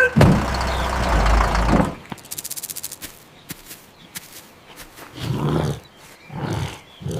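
Cartoon sound effects: a loud rumbling rush for about two seconds, then a short run of rapid clicks, then three short low growls near the end.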